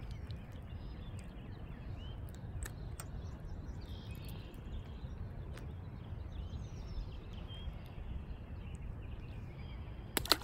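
Steady low outdoor rumble with faint bird chirps scattered through it and a few light clicks. Near the end comes one short, sharp, loud sound as the bobber rig is cast out with a spinning rod.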